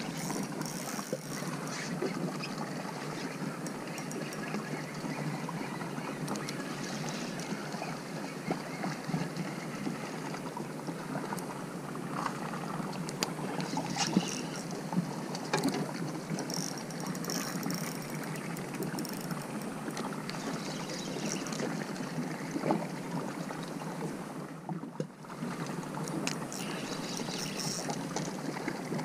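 Water splashing and lapping against a boat's hull, with wind on the microphone and scattered small knocks and clicks.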